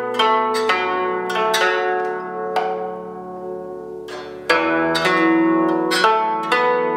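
Guzheng, a 21-string Chinese zither, played with taped finger picks: a run of plucked notes that ring and fade. The notes soften for a moment midway, then a strong plucked note comes in about two-thirds of the way through.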